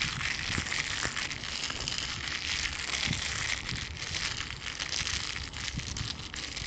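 Intro sound effect: a steady crackling hiss with fine ticks and a few soft low thumps.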